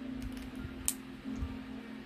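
Soft background music holding a low note, with a light click about a second in.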